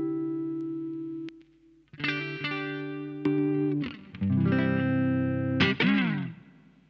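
Electric guitar played through a compressor effect: a held note that stops about a second in, then a few plucked notes with long, even sustain, ending in a downward slide that fades out.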